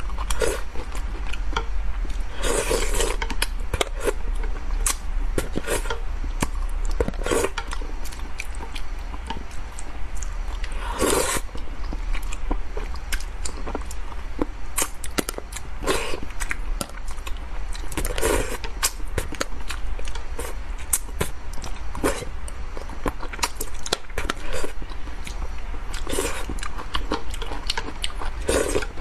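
Close-miked eating of spicy braised fish: steady wet chewing and lip-smacking with many small clicks from chopsticks, and a louder smack or suck every few seconds.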